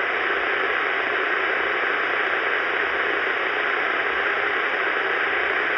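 CB radio receiving on channel 6 (27.025 MHz), its speaker giving steady static hiss on an open channel.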